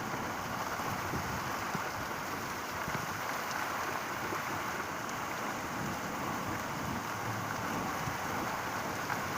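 Heavy rain falling steadily during a thunderstorm.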